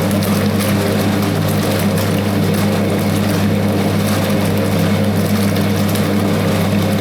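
Hoover 0321 wringer washing machine running: a steady electric motor hum with a constant churning noise over it.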